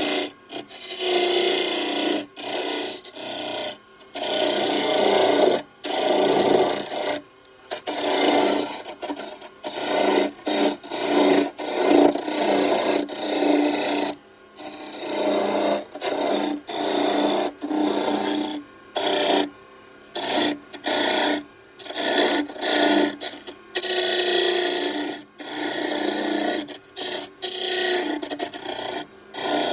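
Wood spinning on a wood lathe being worked, a tool or abrasive scraping against it in many short repeated passes, each lasting up to a couple of seconds, with brief pauses between.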